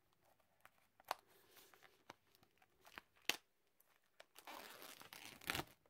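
Faint crinkling of plastic wrapping and a few small clicks as a mediabook is unwrapped by hand, with a short stretch of rustling near the end.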